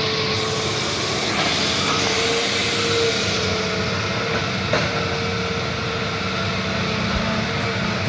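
Heavy earth-moving machinery's diesel engine running steadily with a constant hum.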